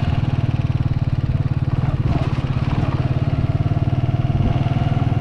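Small fuel-injected commuter motorcycle engine running steadily while riding along at an even speed, with a constant pulsing engine note.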